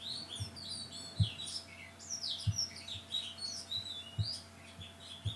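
Small birds chirping and twittering in the background, many quick rising and falling calls. Soft low thumps are heard about seven times at irregular intervals, the loudest a little after a second in.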